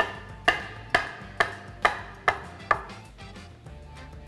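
A metal bench scraper chopping a rope of gnocchi dough against a wooden cutting board: seven sharp chops about two a second, stopping about three seconds in.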